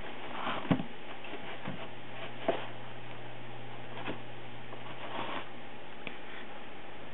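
Tissue paper rustling as a cat tugs tissues out of a cardboard tissue box, in a handful of short scuffs with two sharper taps, one just under a second in and one about two and a half seconds in, over a steady low hum.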